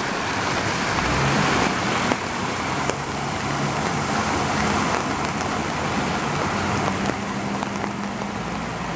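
Heavy rain pouring steadily, with a car's engine running underneath as a vehicle moves along the flooded street.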